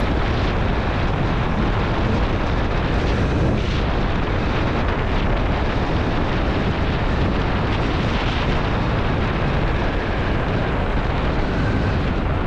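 Steady, loud wind noise buffeting an action camera's built-in microphone on a motorcycle ridden at about 75 km/h, drowning out the engine.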